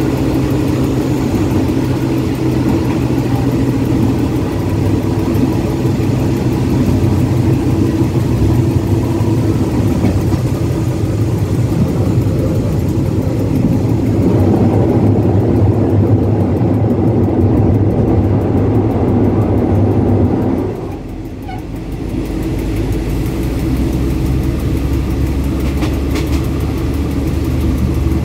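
Diesel locomotive running, heard from inside its cab: a steady engine drone with wheel and rail noise. About 21 seconds in, the engine note dips and settles at a lower pitch as the train slows.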